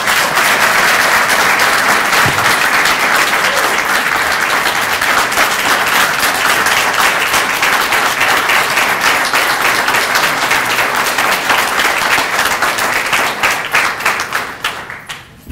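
An audience applauding: steady, dense clapping from a full room that swells in at once, keeps up for about fourteen seconds, and thins out near the end.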